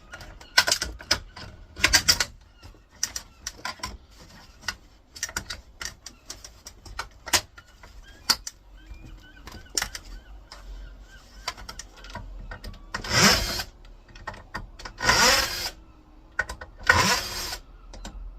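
Power screwdriver running in short runs of about a second each, three times near the end, as it backs out the screws holding a monitor stand's metal bottom plate. Before that come clicks and knocks of the tool and screws against the metal.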